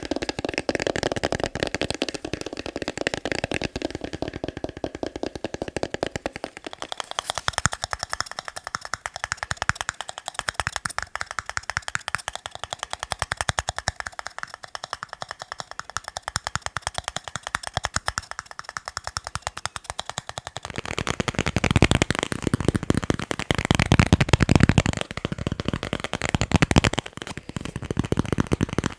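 Fast ASMR tapping on a series of objects, many taps a second. The sound turns lighter and crisper about seven seconds in as the tapping moves to another object, then deeper and louder about twenty-one seconds in as it moves to a third.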